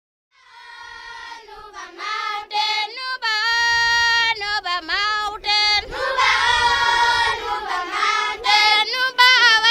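Children singing a song, the voices fading in about half a second in and growing louder around two seconds in.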